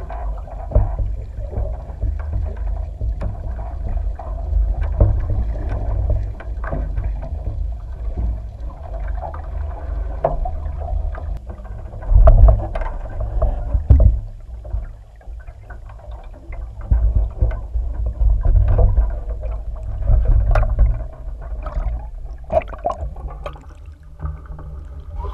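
Water sloshing and churning around a camera mounted low on a capsized 49er skiff, heard muffled and partly underwater as a deep rumble. Scattered knocks and thumps come through it, and the loudest come about halfway through.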